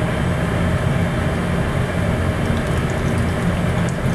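Shrimp deep-frying in hot oil at 350°F, a steady bubbling sizzle over a low, even hum.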